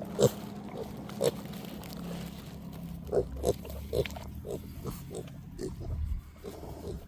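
Kunekune pigs grunting: short separate grunts, a couple at first, then coming quicker from about three seconds in.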